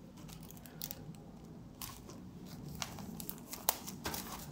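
Sheet of paper and sticky tape being handled as the paper is taped and folded over a wooden skewer: faint rustling and crinkling with a few light ticks, the sharpest a little past halfway.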